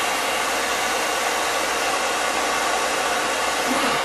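Handheld blow dryer running steadily on high, an even rushing blow, drying a child's thick hair.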